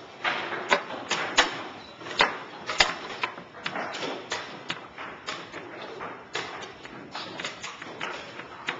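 Chess pieces set down hard on the board and chess clock buttons slapped in a fast blitz game: a rapid, irregular run of sharp knocks and clicks, several a second at times.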